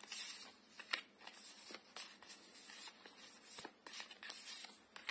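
A hand of tarot cards being sorted: cards sliding and flicking against one another, with short papery swishes and light snaps at irregular intervals as they are fanned out and laid down.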